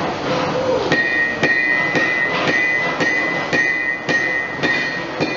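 A farrier's hammer strikes horseshoe nails as a shoe is nailed onto a horse's hoof. The strikes start about a second in and come about twice a second, each with a short metallic ring.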